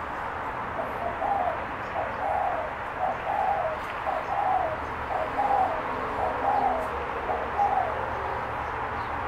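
Spotted dove cooing: a run of about eight short, evenly repeated coos, roughly one a second, over a steady background hiss.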